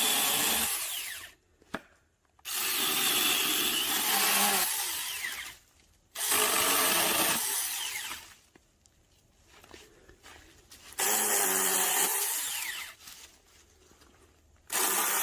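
New Huing 4-inch cordless mini chainsaw cutting branches in repeated short bursts, several within a few seconds of each other. Each burst starts sharply and ends with the electric motor's whine falling as the chain winds down.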